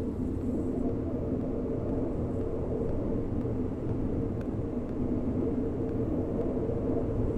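Steady rumble and drone of a diesel-hauled passenger train, heard from aboard as it rolls slowly along a station platform.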